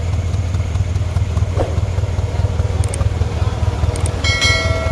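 An off-road vehicle's engine running with a steady low drone. About four seconds in, a brief high-pitched tone joins it.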